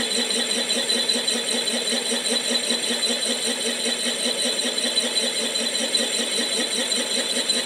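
Knee mill running, spinning a boring head and bar to bore a cement-mixer yoke journal: a steady machine whine with a fine, fast flutter.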